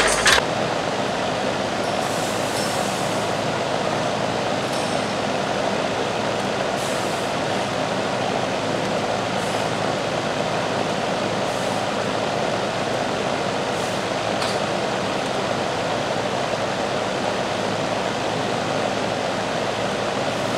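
Steady, even rushing noise with no clear pitch, broken now and then by a few faint ticks.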